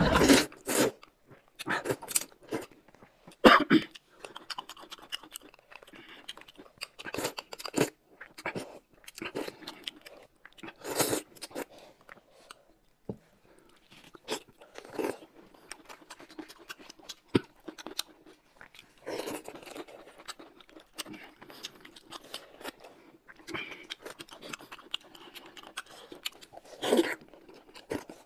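Eating sounds close to the microphone: wide noodles slurped up and chewed, with irregular crunching and short clicks.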